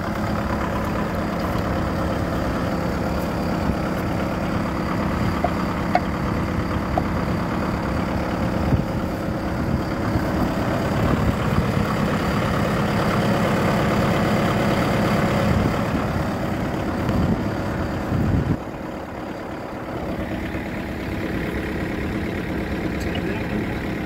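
Tractor engine idling steadily close by, becoming quieter about eighteen seconds in.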